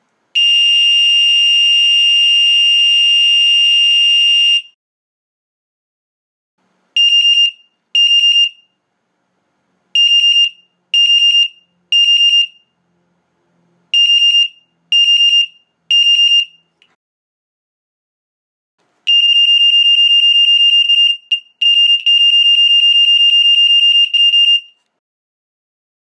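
Amseco Select-A-Horn fire alarm horn sounding a loud, shrill steady tone for about four seconds. After a pause it sounds in half-second beeps grouped in threes, then a steady tone again for about six seconds, broken twice by brief dropouts, before it stops.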